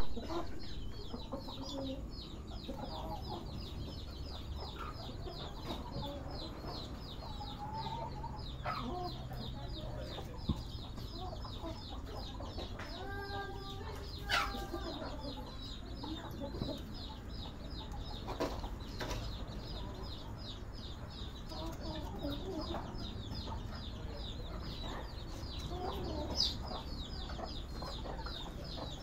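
Serama chickens clucking now and then off to the side, with one longer pitched call about halfway through.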